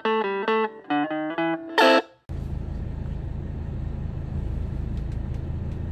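Electric guitar music that stops abruptly about two seconds in. It gives way to a steady low rumble: the Mercedes 300SD's OM617 five-cylinder turbodiesel idling, heard from inside the car.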